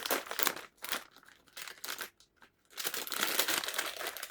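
Plastic snack packaging crinkling as it is handled, in short bursts at first and then steadily from about three seconds in.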